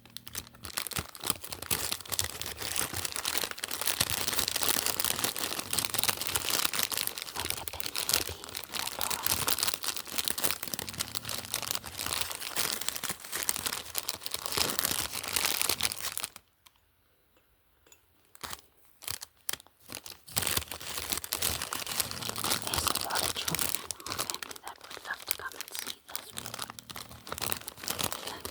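Packaging being crinkled, rustled and torn open by hand in a dense crackle, stopping briefly a little past halfway and then starting again.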